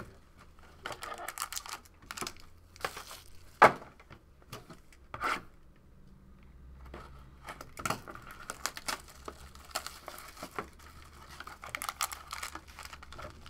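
Hands unsealing and opening a trading-card box: crinkling and tearing of wrapping and cardboard, with scattered sharp clicks and crackles, the loudest a little under four seconds in.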